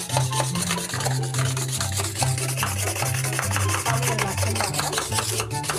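A hand-pumped mechanical whisk churning a liquid mixture in a plastic bowl: rapid, repeated rubbing, scraping strokes. Background music with a stepping bass line plays underneath.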